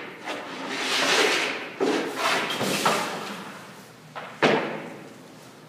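Hockey goalie's skates scraping across the rink surface in lateral pushes, with sharp thuds as the leg pads drop to the surface. The loudest thud comes about four and a half seconds in.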